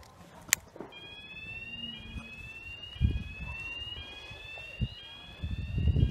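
An electronic alarm starts about a second in: a tone that sweeps upward over roughly a second, repeating about once a second. A few low thumps sound on the microphone around the middle and near the end.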